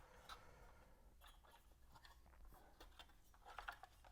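Near silence, with a few faint clicks and light scrapes from turntable parts being handled as a belted part is dropped onto its spindle.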